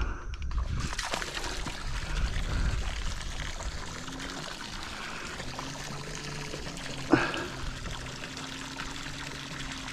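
Water trickling and pouring steadily, with a single sharp knock about seven seconds in.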